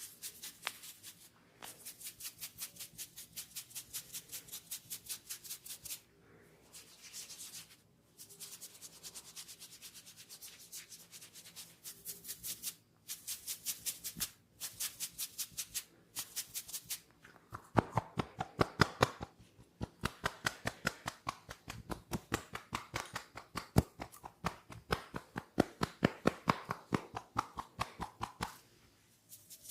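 Hands working through hair in a head massage: fast, even rubbing strokes with a hissy, crackling sound, several a second, broken by short pauses. About two-thirds of the way in they give way to louder, fuller rhythmic tapping strokes, which stop shortly before the end.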